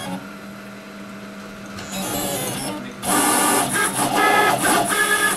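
CNC router stepper motors whining as the axes run a G-code toolpath at a speed set by the pendant's shuttle control. The whine is quieter at first, then loud from about three seconds in, changing pitch in steps as the moves change speed and direction.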